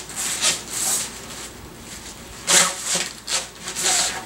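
A pipe being worked into a nylon fabric sleeve: a run of uneven scraping, rustling rubs of pipe against fabric, the strongest about two and a half seconds in.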